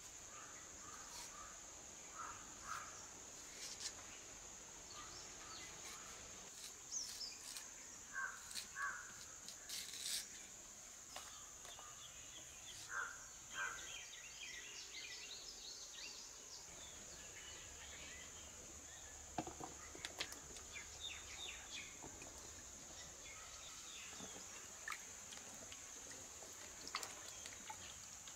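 Faint rural ambience: a steady high-pitched insect drone, with short bird chirps scattered through the first half and a few light clicks.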